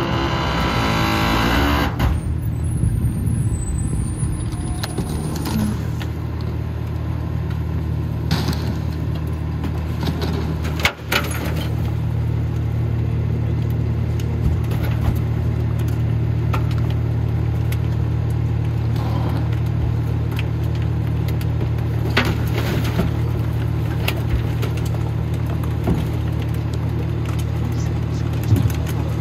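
Pakmor rear-loader garbage truck running steadily with a low engine hum, while bins and bags knock and bang now and then as they are tipped into the hopper. A louder, higher sound over the hum drops away about two seconds in.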